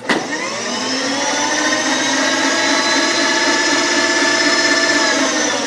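Electric motor on a milling machine switching on, its whine rising over about the first second and then running steadily at speed.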